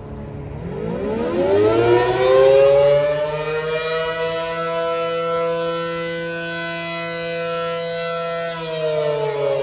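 A.C.A. Allertor 125 rotating tornado siren winding up from low pitch to a steady, loud two-tone chord within about three seconds, holding, then starting to wind down about a second before the end: one rise and fall of the attack wail.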